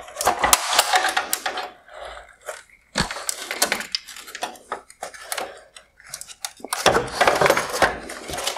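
Black plastic bezel and trim of a Mercedes-Benz CLA LED headlight being pried and pulled off the housing: a run of sharp plastic cracks and clicks. The crackling is densest at the start, about three seconds in, and again near the end.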